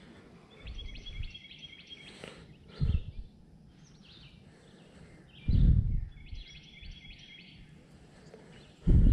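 A songbird singing twice, each phrase a quick run of repeated high notes lasting a second or two. Three short low rumbles or thumps cut through, the loudest about five and a half seconds in and near the end.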